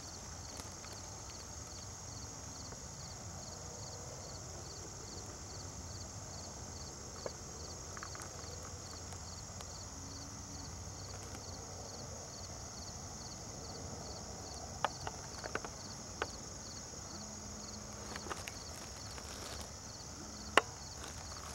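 Quiet outdoor field ambience: a steady high-pitched hum with a faint, even pulsing, and a few sharp clicks in the second half, the loudest near the end.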